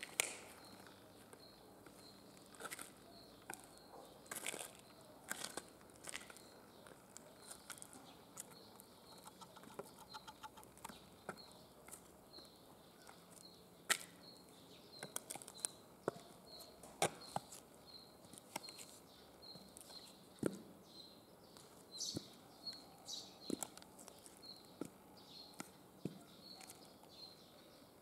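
Hard platform high heels knocking and scraping on gritty concrete and loose gravel, as irregular sharp clicks from steps and shifting feet. Behind them, a small bird gives a short high chirp over and over at a steady pace.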